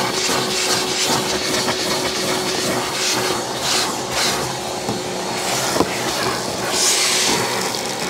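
JPT KVC60 industrial wet-and-dry vacuum cleaner running on a single motor, its round brush nozzle sucking dust and grit from car floor carpet. A steady rush of air whose hiss swells each time the nozzle is pushed across the carpet, with one small click about six seconds in.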